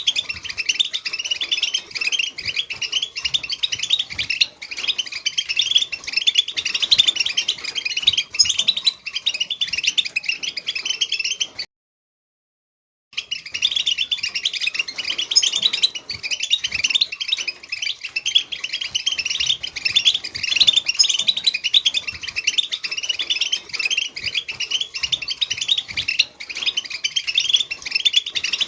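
A flock of European goldfinches chattering and twittering together in a dense, unbroken stream of quick high chirps. The sound cuts out to silence for about a second and a half near the middle, then resumes just as before.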